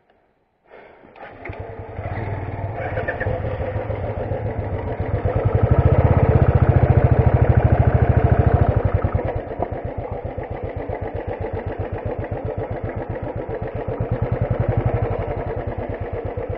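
Motorcycle engine running as the bike rides along a rough dirt trail, with a fast, even pulsing beat. It grows louder for a few seconds near the middle, then settles back to a steady run.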